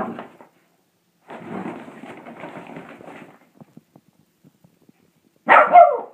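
Shih Tzu puppy scuffling inside a fabric laundry bag, the bag rustling as it moves, then a loud bark with a falling pitch near the end.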